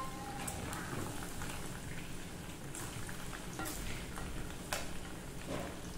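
Breadcrumb-coated chicken pieces frying in hot oil in a steel pot: a steady crackling sizzle, sounding much like rain, with scattered sharper pops.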